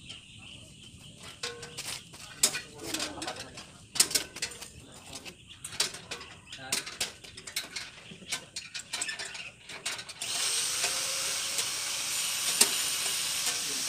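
Irregular clicks and metallic taps from hand work on stainless steel kitchen fittings. About ten seconds in, a steady hiss starts suddenly, with a few more clicks over it.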